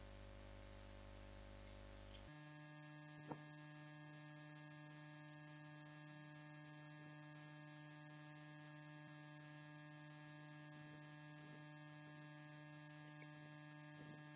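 Near silence: a faint steady hum of room tone, with two faint short clicks in the first few seconds.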